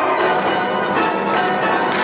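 Live theatre orchestra playing a loud, full passage, with sharp accented strokes about once a second.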